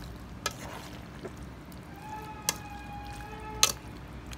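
A spoon stirring a mayonnaise-dressed diced salad in a stainless steel bowl, with a few sharp clinks of metal on the bowl. A faint steady tone sounds through the middle of it.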